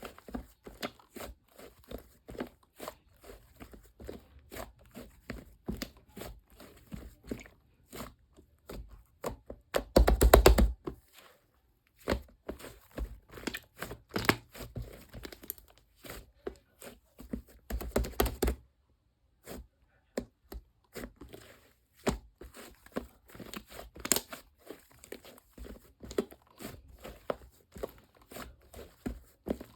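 Close-miked eating: a run of crisp crunching and chewing clicks, with denser, louder crunching about ten seconds in and again around eighteen seconds.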